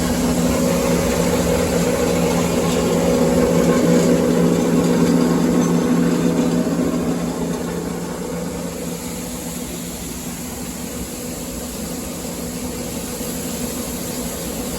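Engine of a homemade motor cart running steadily, belt-driving a truck manual transmission that turns a PTO shaft to power the grain dryer. It is a constant engine drone that swells slightly and then eases back partway through.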